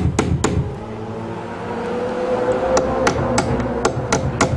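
Hammer driving nails into tongue-and-groove wooden soffit boards overhead: two quick blows, a pause of about two seconds, then a run of blows at about three a second near the end.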